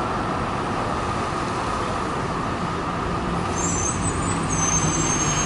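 Steady rolling rumble of a tram and street traffic, with a thin high-pitched metallic squeal coming in about two-thirds of the way through.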